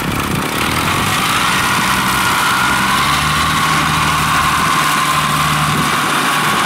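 Open inboard engine of a small river ferry, driving a long-tail propeller shaft, running steadily with a whine.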